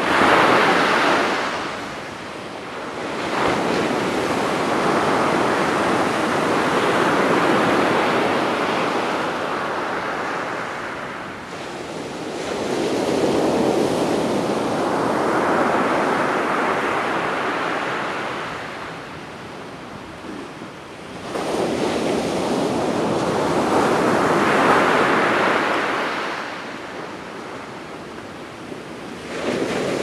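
Rough sea surf on a sandy beach: waves breaking and washing up the shore one after another. Four long surges of crashing and rushing water swell and fade, about eight seconds apart.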